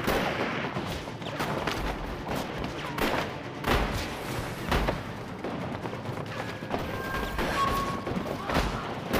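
Battle gunfire: irregular shots from several rifles in a running firefight, with a few louder shots standing out around four, five and eight and a half seconds in.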